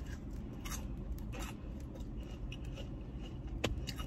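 Biting into and chewing a crunchy potato-crusted Korean corn dog: a run of crisp crunches and crackles, with one sharper crunch near the end.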